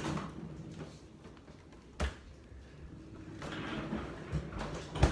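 A few sudden knocks of objects being handled, one about two seconds in and the loudest near the end, with soft rustling between them.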